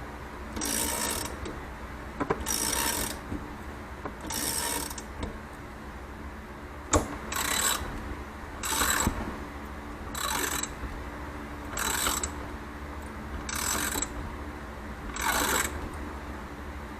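Ratchet wrench cranking the threaded rod of a motorcycle spring compressor on a coil-over shock: about nine strokes, each a short burst of ratchet clicking, roughly every second and a half, with one sharper metallic click partway through.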